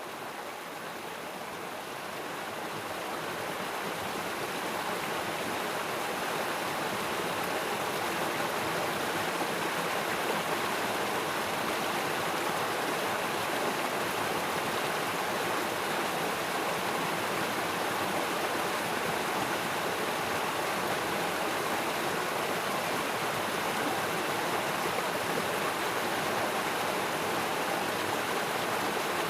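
Flowing water rushing steadily, like a stream running over a weir or rapids. It grows louder over the first few seconds, then holds even.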